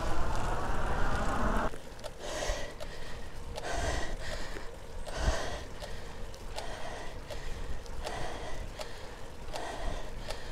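A cyclist breathing hard while pedalling up a steep road climb, a heavy gasping breath about every second and a half. The breathing comes in under two seconds in, after a louder rushing sound with a wavering whine cuts off abruptly.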